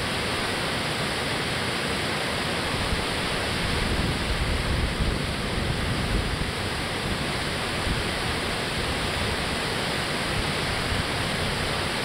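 Water rushing steadily over a low concrete river dam, a continuous even roar of falling water.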